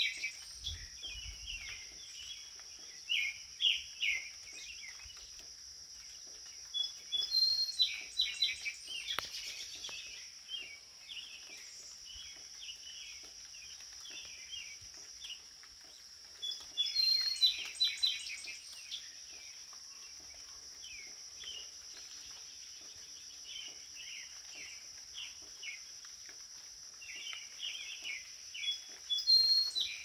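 Garden songbirds singing short phrases of quick, chirping notes, repeated every several seconds, over a steady high-pitched drone.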